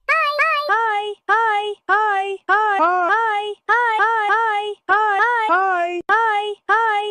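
A melody of short synthetic sung-vowel notes, about two a second with brief gaps between them. Each note swoops up at its start, and most stay on one pitch with a few stepping lower or higher.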